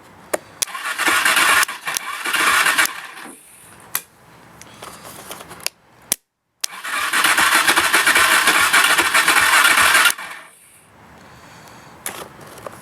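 Kawasaki KFX 400 ATV's electric starter cranking its single-cylinder engine with the choke on, in two attempts of about three seconds each with clicks between. The engine turns over but does not catch, which the owner puts down to the starter and a carburetor fault.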